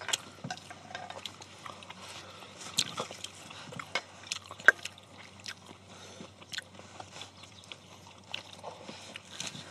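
Eating sounds: people biting into and chewing lettuce wraps of stir-fried pork, with scattered small clicks and crackles, one sharper click about four and a half seconds in.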